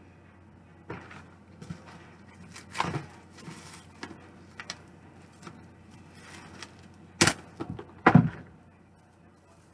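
Kitchen handling noises: scattered knocks, taps and rustles, with two sharp, loud knocks about seven and eight seconds in.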